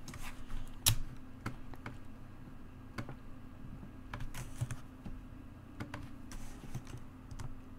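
Irregular clicks of a computer keyboard and mouse while code is being selected and deleted, a few clicks a second at most, over a faint steady hum.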